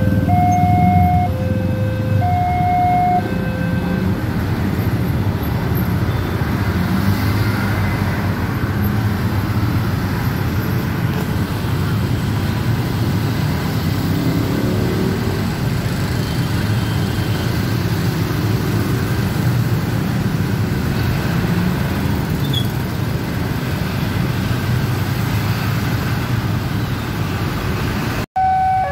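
A railway crossing's electronic warning signal alternates between two notes and stops about three seconds in. After that, a crowd of motorcycles and scooters drive across the tracks with their engines running, a steady dense traffic noise. Just before the end the two-note warning starts up again.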